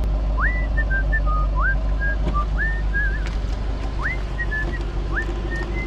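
A person whistling a short tune: each phrase swoops up and then holds steady notes. Under it runs the low hum of the Ford Mustang's engine idling.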